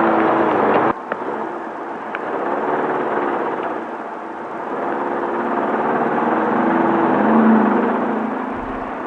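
Air-cooled 1600 cc VW flat-four engine of a Class 5/1600 desert-racing Bug running at speed over rough noise from the car. Its pitch rises and falls with the throttle, and the sound drops off sharply about a second in before building again.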